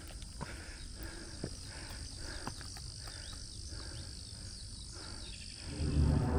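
Insects trilling steadily in the woodland, full of quick falling chirps, over soft footsteps on a dirt forest trail about twice a second. Near the end a loud low rumble comes in.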